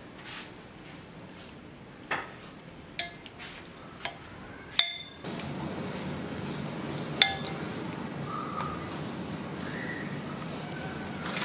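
Metal spoon clinking against a glass bowl while stirring sliced raw beef in its marinade: about five sharp clinks, each with a short ring, the two loudest near the middle.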